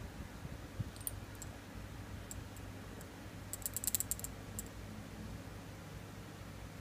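Small, light plastic clicks and taps from handling a handheld glucose meter and fitting its test strip, scattered through, with a quick cluster of them about four seconds in. A faint steady low hum runs underneath.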